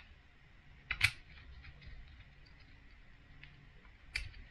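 Small sharp plastic clicks as an Insta360 ONE R action camera is handled and fitted in its plastic mounting bracket: a double click about a second in, another near the end, and faint ticks between.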